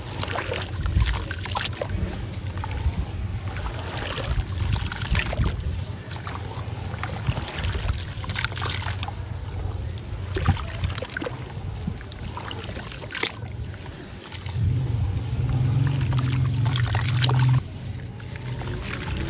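Hands squelching and kneading a wet slurry of crumbled sand and cement in a tub of water, with irregular squishes and splashes. About three-quarters of the way in, a loud low rumble runs for about three seconds and cuts off suddenly.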